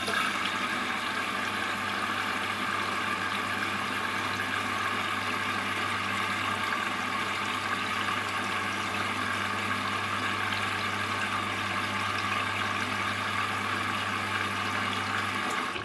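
Washing machine running: a steady rush of water with a constant low motor hum.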